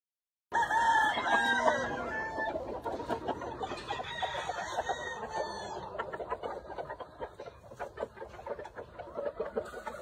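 Gamefowl rooster crowing, starting abruptly about half a second in, followed by a run of short, quick clucks.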